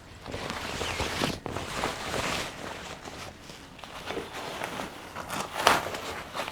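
Fabric rustling and handling noise as a Halloween animatronic's outdoor-rated pants are pulled down over its foam-covered leg poles, with irregular scrapes and a few light knocks.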